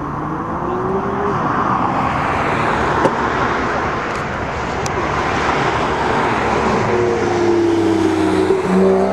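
Airbus A320's CFM56 jet engines running at taxi power: a steady rush and whine that swells slightly as the airliner passes. A lower hum with a slowly falling pitch joins in near the end.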